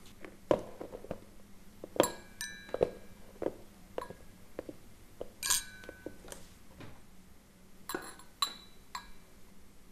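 Glassware and tableware clinking at a dinner table: a scattered series of light clinks and knocks, several ringing briefly like glass.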